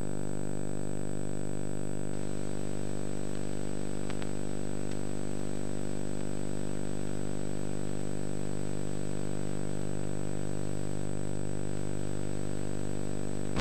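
A steady electrical hum: a low buzz made of many evenly spaced overtones that holds unchanged throughout, with a faint click or two about four seconds in.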